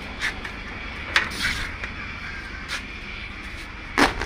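Handling noise from cables and gear being moved: a few short clicks and rustles, the loudest about four seconds in, over a steady low hum.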